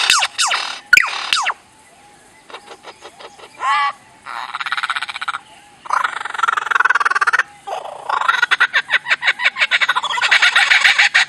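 A series of animal calls: quick falling chirps at first, then a short warble and long runs of fast rattling, croak-like pulses.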